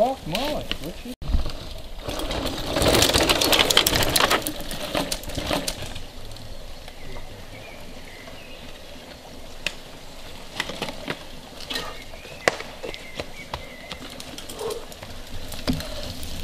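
Mountain bike riding past on a dirt forest trail: a loud rush of tyre and trail noise a couple of seconds in, then quieter passing with scattered sharp clicks and snaps. A brief burst of voices comes at the very start.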